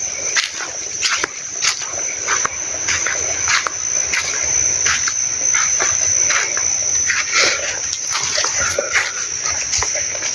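A steady, high-pitched insect drone, likely crickets or cicadas, runs through the outdoor chorus. Many short, irregular clicks and chirps sound over it.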